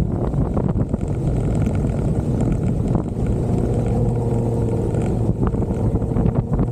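Jeep Wrangler engine running steadily while driving off-road, with wind buffeting the microphone and scattered small knocks and rattles.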